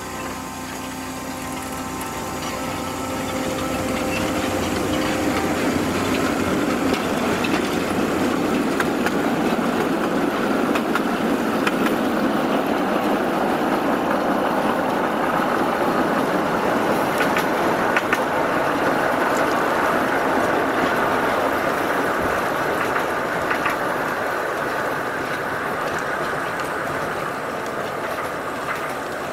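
Miniature ride-on locomotive pulling passenger cars along the rails: a steady rumble of wheels on track that builds over the first few seconds as the train passes close, then slowly fades as it moves away.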